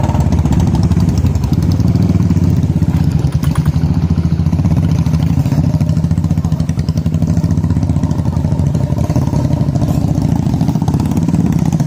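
Motorcycle engine running loud and steady at low speed, without pauses or big changes in revs.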